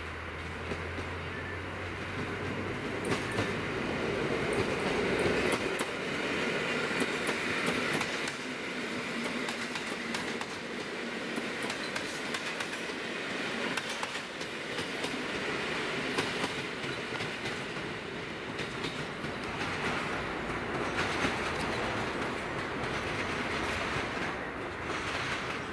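Koleje Śląskie 14WE electric multiple unit running past, its wheels clacking over the rail joints. It is loudest about five seconds in and eases off toward the end.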